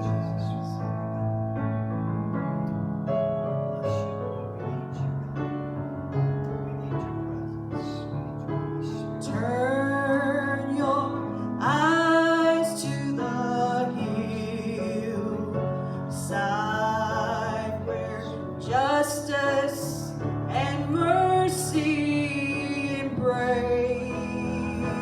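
Slow piano accompaniment to a hymn, with held chords. A solo voice comes in singing over it about nine seconds in.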